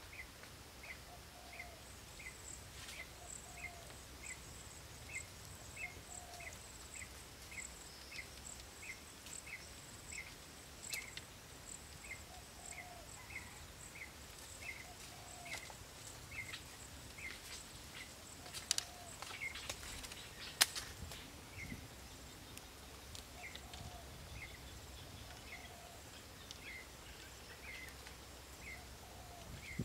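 Outdoor ambience of wildlife calls: a short high chirp repeating about twice a second, with a lower call every couple of seconds. About two-thirds of the way through come a few sharp knocks from bamboo poles being handled.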